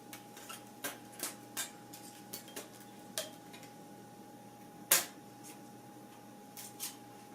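Metal parts of a beer can chicken stand kit being handled and set down: a series of light, separate clicks and clinks, the loudest about five seconds in.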